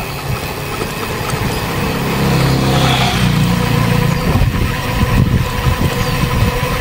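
Motorcycle engine running under steady wind noise on the microphone while riding. The engine sound swells about two to four seconds in.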